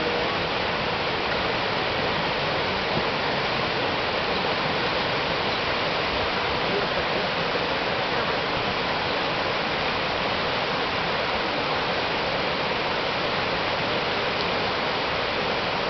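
Steady rushing of tsunami floodwater, an even, unbroken noise with no distinct splashes or knocks.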